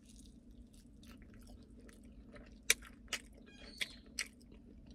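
A person chewing a bone-in chicken wing, with four sharp wet mouth smacks in the second half.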